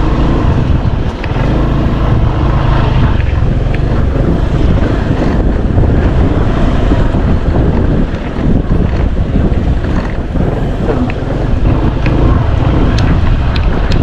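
Motorcycle engine running while riding along a dirt trail, with wind rumbling on the microphone.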